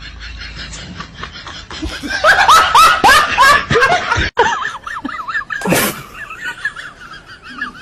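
A burst of loud laughter, a quick run of falling 'ha' sounds about two seconds in. It is followed by a short noisy rush and a faint, wavering high-pitched sound.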